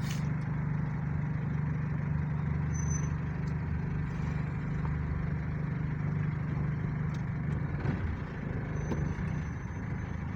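Steady low engine drone and road noise of a moving vehicle; the drone shifts and eases off about eight seconds in.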